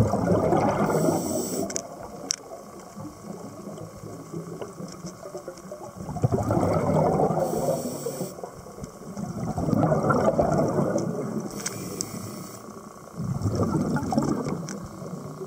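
Scuba diver breathing through a regulator underwater: four bubbly rushes of exhaled air about every three to four seconds, with a short hiss of the regulator on each breath in.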